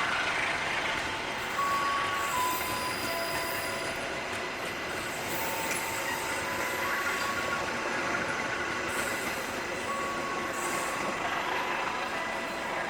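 Train cars rolling past on the rails with a steady rumble of wheels, broken by short high squealing tones that change pitch now and then.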